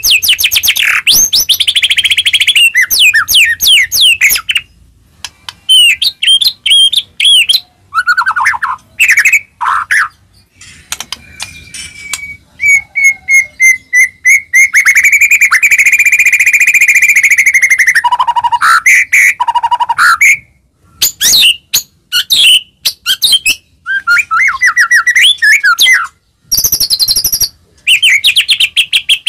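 White-rumped shama (murai batu) singing loudly in its full 'gacor' song: quick, varied whistled phrases and rapid trills, broken by short pauses, with one long held note near the middle. It is the kind of song played to provoke other shamas into singing.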